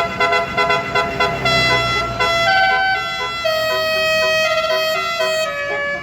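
Tour bus's Basuri 'telolet' multi-tone air horn playing a melody: a quick run of short toots, then longer held notes stepping between pitches, stopping just before the end.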